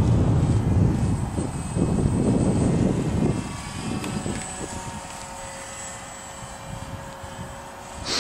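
Radio-controlled model airplane flying overhead, its motor and propeller giving a steady high whine, with wind buffeting the microphone for the first few seconds.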